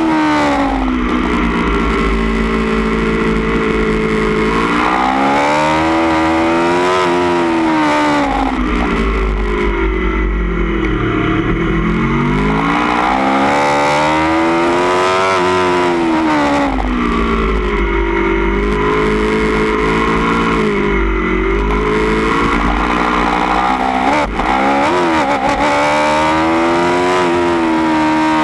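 2016 Aprilia Tuono V4 1100 Factory's V4 engine heard from on board at track speed, through a baffled Austin Racing GP1R end can. The revs climb and fall again and again as the bike accelerates out of corners and slows into the next ones, with a quick sharp blip of revs a little before the end.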